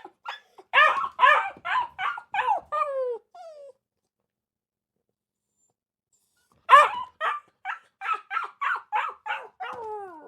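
A dog barking in two quick runs of high yapping barks with a pause of about three seconds between them. Each run trails off in calls that fall in pitch like a whine.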